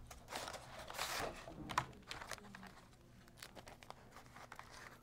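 Plastic packaging crinkling and rustling, with a few light clicks, as a model locomotive is lifted out of its clear plastic case and unwrapped from its plastic sleeve. The rustling is busiest in the first two seconds, then fainter.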